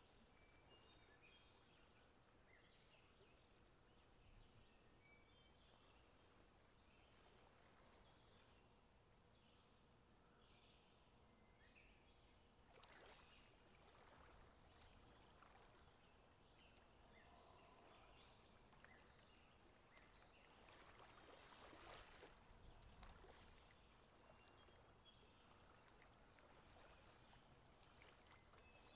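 Very faint outdoor nature ambience: scattered short high chirps over a soft rushing noise that swells twice, once about halfway through and again more strongly a little later.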